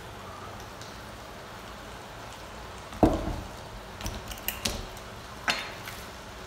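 Thick tomato sauce with chicken simmering in a stainless steel wok, bubbles plopping out of the sauce: one loud plop about three seconds in, then a scatter of smaller pops and clicks, over a steady low hiss.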